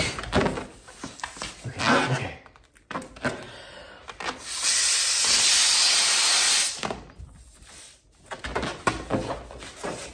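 A rubber glove being blown up by mouth: one long, forceful breath into it about halfway through, lasting a little over two seconds. Shorter handling noises from the stretched glove come before and after.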